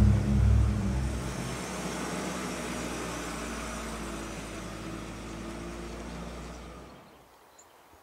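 A car towing a touring caravan drives away, its engine and tyre noise fading slowly into the distance until it is nearly gone.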